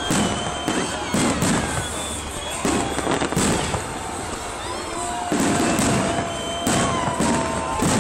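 Fireworks going off: a rapid, irregular series of bangs and crackles, with thin whistling tones gliding over them.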